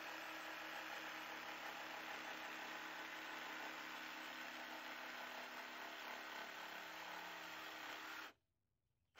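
Cordless jigsaw motor running steadily with a fixed whine while cutting through a wooden 2x4, stopping abruptly about eight seconds in.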